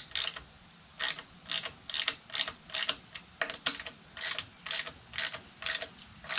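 Socket ratchet wrench clicking in short strokes, about two a second, as bolts are given a few turns to tighten them.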